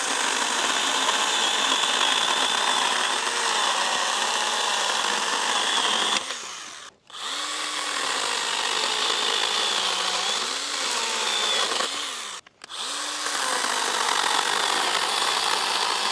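Stihl GTA 26 battery pruner (mini chainsaw) cutting through a thick branch under full load: its electric motor and chain whine in three long bursts, the pitch sagging and recovering as the chain bites, with short stops about seven and twelve and a half seconds in.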